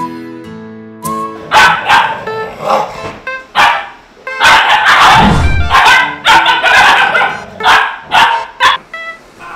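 Dogs barking and yipping in a quick, irregular run of sharp barks that starts about a second and a half in, over light background music.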